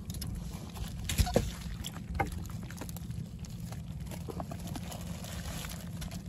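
A hand rummaging through a tray of wet catch (leaves, plastic, shells and small crabs), with a few sharp clicks and knocks, the loudest just over a second in, over a steady low hum.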